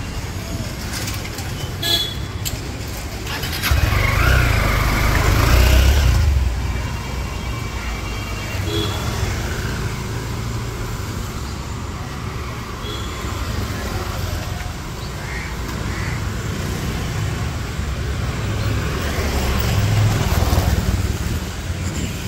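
Busy city street traffic: motorbikes and scooters riding past close by, with short horn toots over a steady traffic rumble. A vehicle passes loudest about four seconds in, and another comes close near the end.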